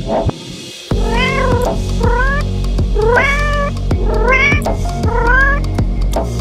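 Domestic cat meowing five times in quick succession, each meow about half a second long, over background music that starts about a second in.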